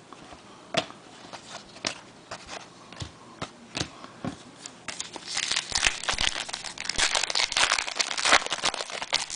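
A trading-card pack wrapper being crinkled and torn open by hand: a few scattered crackles and clicks, then a dense run of crinkling about halfway through.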